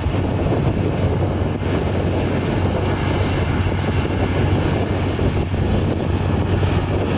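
Wind noise on the microphone, with a steady low hum underneath.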